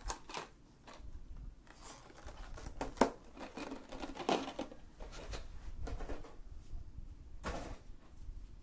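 Scattered rustling, clicks and knocks of small objects being handled and put away while tidying up, with one sharp click about three seconds in.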